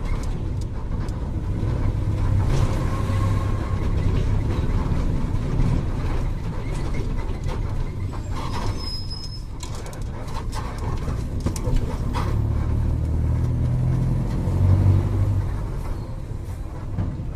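VW 17.230 OD Euro V bus diesel engine running, its low drone swelling and easing with the throttle, with scattered clicks and rattles and a brief high squeal about halfway through.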